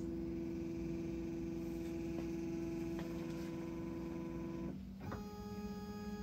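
Shapeoko CNC router's stepper motors whining steadily with a printer-like tone as the machine moves the router head through a test job. The tone shifts to a different pitch about five seconds in.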